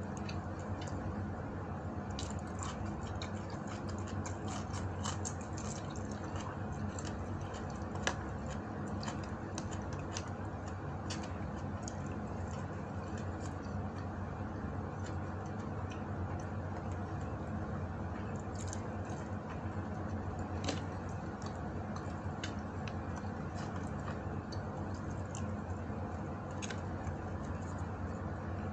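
Close-up eating sounds: soft clicks and squishes of dried fish and rice being picked apart with the fingers and chewed, scattered over a steady background hum.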